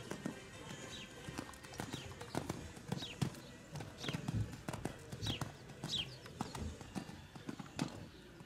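Horse cantering on a sand arena: muffled hoofbeats, with a short, high, falling squeak about once a second.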